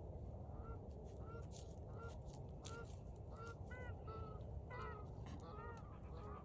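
A bird calling with short, clipped, slightly arched notes, repeated about twice a second and coming faster near the end, over a steady low background rumble.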